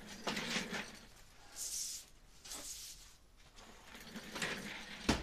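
Broom sweeping in a few short strokes of bristles on the floor, with a sharp knock near the end that is the loudest sound.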